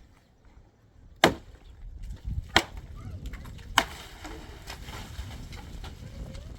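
Three sharp strikes on wood, roughly a second and a quarter apart, with fainter knocks between them.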